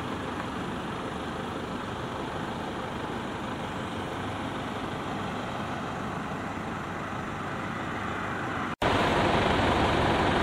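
Steady hum of road traffic noise, with no distinct engine note. It cuts out for an instant about nine seconds in and comes back louder.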